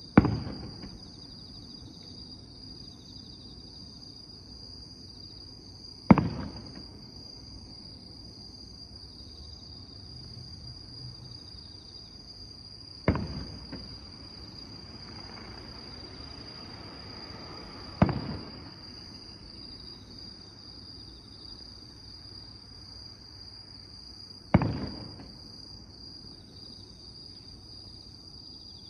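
Distant aerial firework shells bursting five times, each a sharp boom with an echoing tail, about five to seven seconds apart. Under them runs a steady high-pitched chirring of insects.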